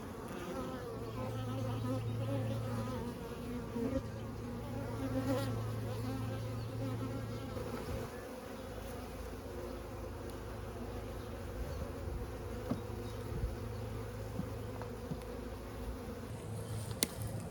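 Many honey bees buzzing around an open hive as frames from a nuc are handled: a steady hum of many overlapping, wavering pitches, a little stronger in the first half, with a single sharp click near the end.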